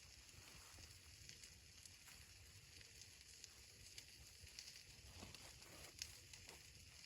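Near silence: faint hiss with a few soft ticks, the clearest about six seconds in.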